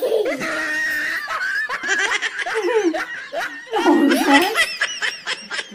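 People laughing, a man and a woman, breaking into quick, short giggles in the last second or so.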